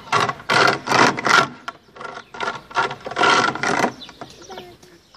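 Metal chain hangers of a playground swing creaking and grinding in repeated bursts as the swing goes back and forth. The bursts fade out near the end.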